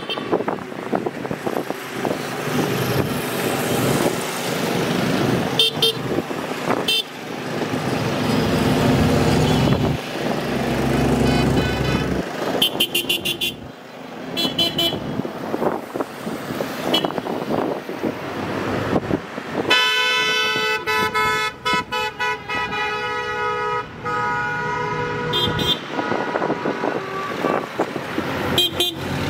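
Trucks and tractors running past with their horns sounding: several short toots scattered through, and one long horn blast of about four seconds some twenty seconds in, over steady engine noise.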